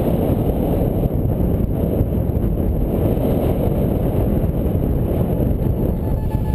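Wind rushing over the camera microphone of a paraglider in flight: a steady, low, buffeting airflow noise.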